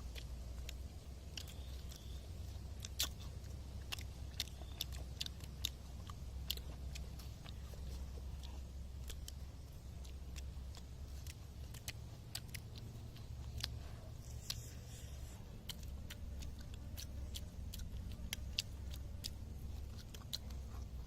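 Eating sounds: crisp crunches and clicks of fish being bitten and chewed, scattered irregularly over a low steady rumble.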